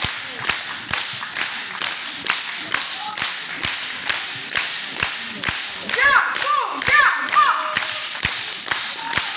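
Concert audience clapping together in a steady rhythm, about two claps a second, over general applause. A few cheering shouts rise over it about six to seven and a half seconds in.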